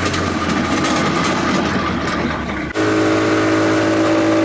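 Motorboat engine running at speed under a loud rush of wind and water. About three seconds in the sound changes abruptly to a steadier engine hum with a clear pitched drone.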